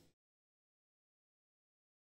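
Silence: the soundtrack is blank, with no room tone or hiss.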